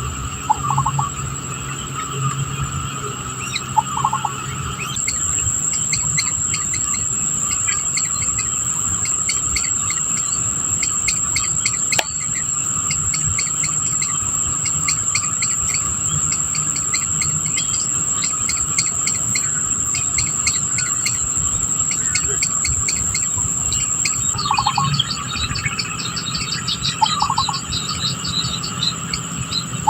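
Insects and birds: a steady high-pitched insect buzz joins about five seconds in and drops out near the end, over dense rapid chirping, while a short falling bird call comes in now and then, twice early and three times near the end.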